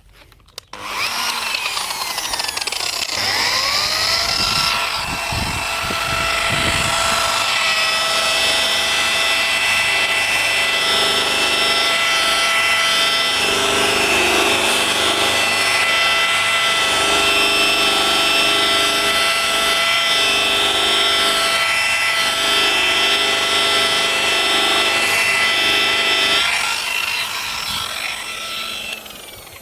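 Handheld power tool buffing restoration creme over a plastic headlight lens with a polishing pad, a steady motor whine over the rubbing of the pad. It starts about a second in, its pitch rises over the next few seconds as it spins up, and it runs down and stops near the end.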